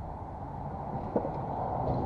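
Steady low rumbling background noise, with one sharp click about a second in from small carburetor linkage parts being fitted by hand.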